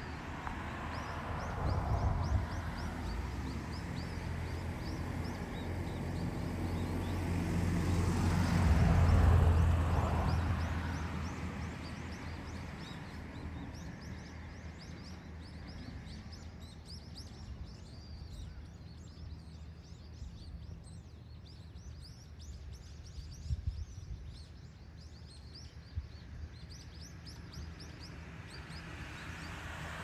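Outdoor background with a vehicle's engine passing by: a low hum swells to a peak about nine seconds in and fades away. Faint high-pitched chirps come and go throughout.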